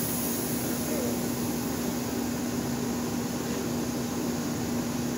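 Shop air compressor running: a steady motor hum under a constant hiss of air, even throughout.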